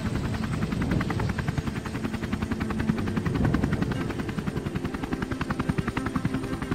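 Helicopter rotor chopping in rapid, even beats, about ten a second, over a steady low rumble, heard from outside the open doorway in flight.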